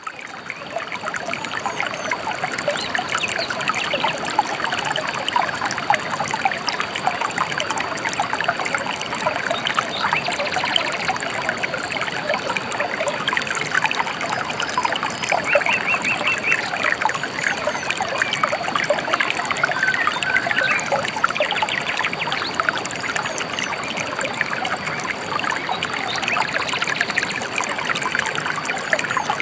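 A gently flowing river or stream trickling and babbling steadily, with a few brief bird chirps over the water, one about halfway through and another a few seconds later.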